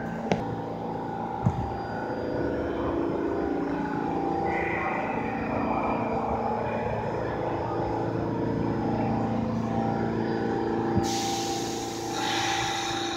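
R46 subway train in an underground station, its motors and equipment running with a steady hum and a few held tones as it stands or creeps along the platform. There are a couple of sharp knocks in the first two seconds and a short burst of hiss near the end.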